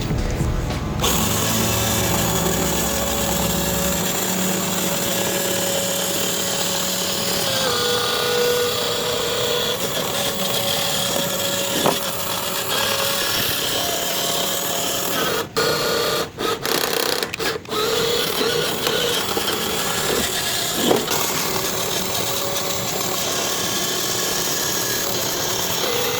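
A small electric motor whining steadily, its pitch shifting slightly about a third of the way in, and cutting out briefly four times a little past the middle.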